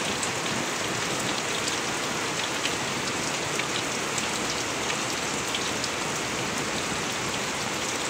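Steady rain falling on the water of small container ponds and on plant leaves, an even hiss with many scattered drop ticks.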